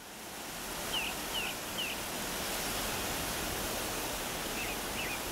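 Forest ambience fading in: a steady rushing noise, with a small bird chirping three quick times about a second in and a few more times near the end.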